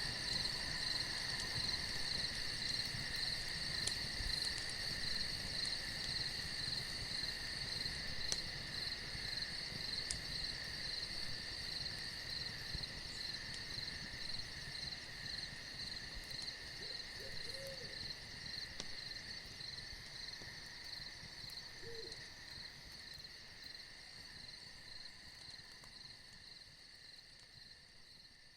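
Night chorus of crickets trilling steadily, with an owl hooting faintly twice past the middle. The whole ambience fades out toward the end.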